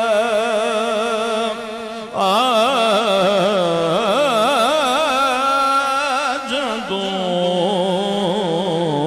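A male naat reciter singing a Punjabi naat in long, drawn-out melismatic notes with a wide wavering vibrato. He breaks off briefly about two seconds in, then carries on with a new held phrase.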